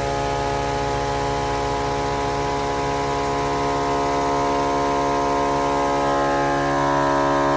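Napa Maxi Trac 12-volt air compressor running steadily under load with a constant-pitched electric hum, pumping air through a manifold into all four tires at once.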